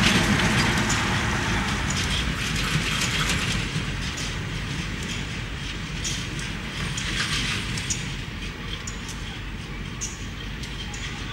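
A train running on the tracks, its rumble fading steadily as it moves away, with scattered sharp clicks of wheels over the rails.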